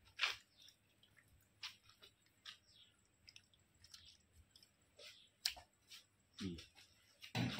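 A flat metal ladle turning chicken pieces in thick red masala in a large metal cooking pot: scattered short wet squelches and scrapes, with a sharper click about five and a half seconds in and a louder noise right at the end.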